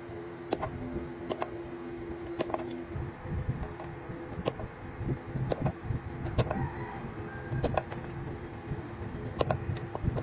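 Small hammer tapping tiny nails through a paint brush's metal ferrule into its wooden handle: sharp, irregular taps about once a second. A steady machine hum runs underneath, strongest in the first few seconds.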